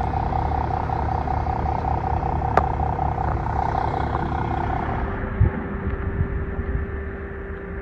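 A motor vehicle running steadily, with a continuous hum that gives way to a lower, duller hum about five seconds in, and a single sharp click near the middle.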